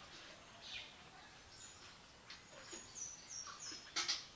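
A small bird calling with short, high chirps that slide down in pitch, several in quick succession in the second half. Two sharp clicks about four seconds in.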